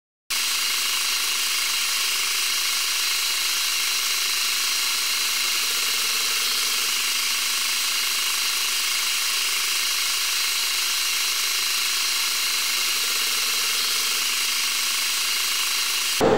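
Manual metal lathe running, a steady, unchanging high whir that holds one level throughout.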